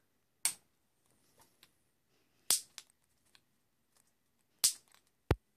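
Piezoelectric barbecue igniter clicked repeatedly: four sharp snaps, the first three about two seconds apart, as its spark is put to a circline fluorescent lamp to make the tube strike.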